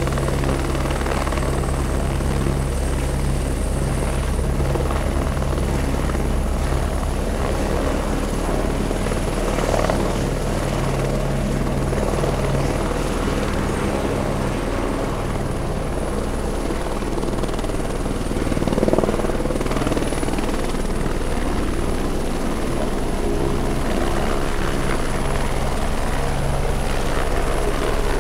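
Helicopter running steadily, heard close from the landing pad: a low rotor beat with a thin, steady high whine above it, swelling briefly about two-thirds of the way through.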